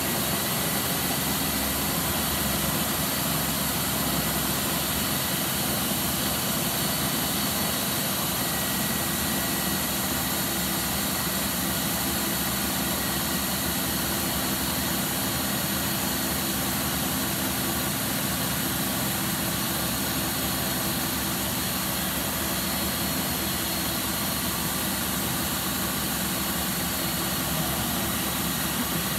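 Ninja kitchen-system blender motor running loud and steady at its highest speed, a constant whine over a broad hum, as it blends thick hummus while oil is drizzled in.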